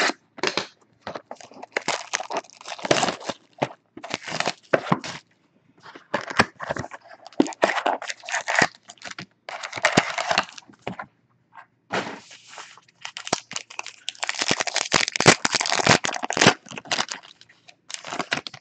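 Foil wrappers of Panini Unparalleled football card packs being torn open and crumpled, crackling in three long bunches with short pauses between.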